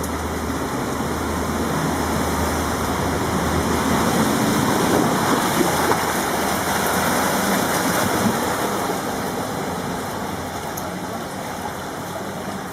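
Rain and running water rushing steadily, swelling a few seconds in and easing off toward the end.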